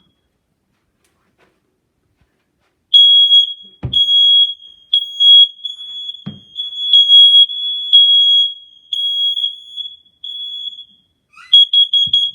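First Alert combination smoke and carbon monoxide alarm sounding after its test button is held: a loud, high-pitched electronic beeping starts about three seconds in and runs with hardly a break, ending in a quick run of beeps near the end. Two dull knocks sound under it early on.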